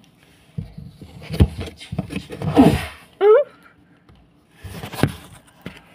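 Irregular thumps and scuffing of the camera being handled against cloth, with a short warbling squeak a little after three seconds in.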